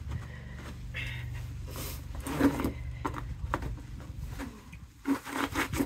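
Short huffs and grunts of effort, with scuffs on rough rock, from a hiker sliding down a steep rock slope on her seat, over a low steady rumble. The loudest bursts come about two and a half seconds in and again near the end.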